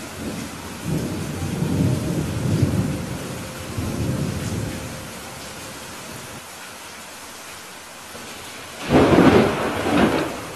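Steady rain with thunder: a low rolling rumble over the first few seconds, then a sharp, loud clap about nine seconds in, followed by a second crack a second later.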